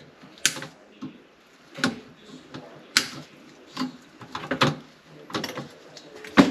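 Irregular clicks, knocks and rustles of hands working on refrigerator tubing, peeling tape and plastic seals off the tube ends, with a sharper knock near the end.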